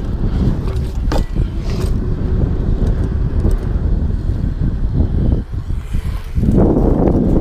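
BMX bike rolling over a concrete skatepark, its tyres rumbling on the rough surface, with wind buffeting the body-mounted GoPro's microphone. There are a couple of sharp knocks about a second in, and the rumble grows louder near the end.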